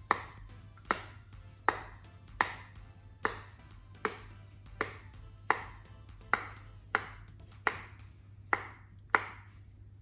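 Silicone pop-it fidget toy bubbles pressed one at a time by a finger: about thirteen sharp pops at a steady pace of under a second apart, each with a short ringing tail.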